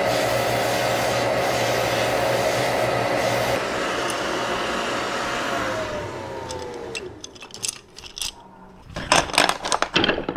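Sandblasting equipment, worked by a foot pedal, running with a loud, steady blowing noise. About six seconds in it winds down with a falling whine. Then wooden hickory spokes knock and clatter as they are stacked.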